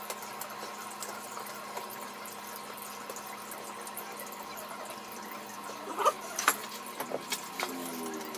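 Steady faint hiss and electrical hum, with a few light clicks and knocks about six seconds in as a plastic security-camera mount is handled and fitted against a wall.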